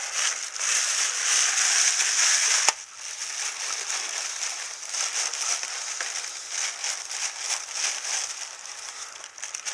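Packaging rustling and crinkling as a subwoofer is unpacked, a steady crackle of many small sounds. There is one sharp click a little under three seconds in, and it is quieter after it.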